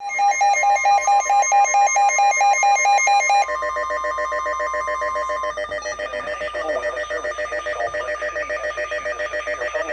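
Emergency Alert System attention tones for a severe thunderstorm warning. A loud electronic tone warbles between two pitches about four times a second, then after about three and a half seconds gives way to a steadier, lower multi-tone alert sound.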